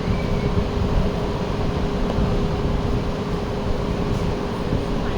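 Steady mechanical hum with a constant drone, like ventilation machinery running.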